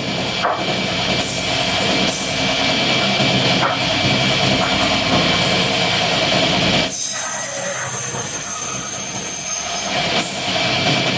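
Wood-cutting machinery running with a steady mechanical noise, which changes abruptly about seven seconds in to a different, higher steady machine sound.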